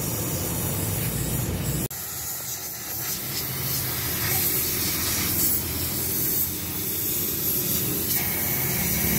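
High-pressure spray wand hissing steadily as its jet washes thick carbon sludge off removed EGR parts. There is a low hum under it for the first couple of seconds and a brief break about two seconds in.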